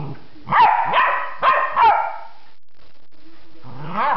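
Dog barking and yelping in play: four quick, loud barks with sharply bending pitch in about a second and a half, a short lull, then one more yelp near the end.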